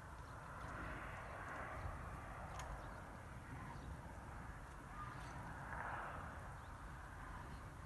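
Cattle moving about in snow: soft, irregular hoof steps and rustling over a low, steady rumble.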